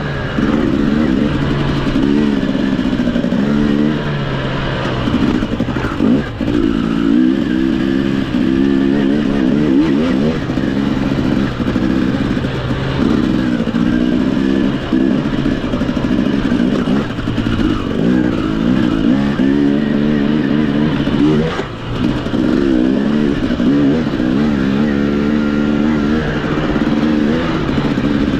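Off-road racing motorcycle engine revving hard and then easing off again and again as the rider works the throttle and gears. The engine note drops out briefly twice, about six seconds in and again about twenty-one seconds in.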